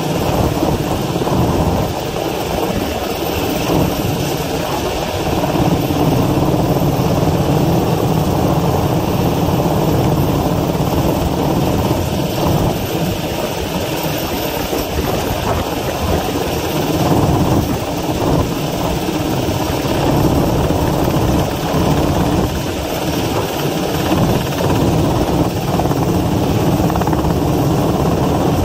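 Helicopter hovering overhead with a long-line load, its rotor and engines running loud and steady.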